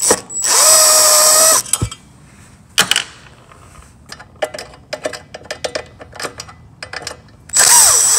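Cordless drill/driver spinning out the screws that hold a headlight projector: two bursts of motor whine of a little over a second each, one near the start and one near the end, with a run of small clicks and taps between them.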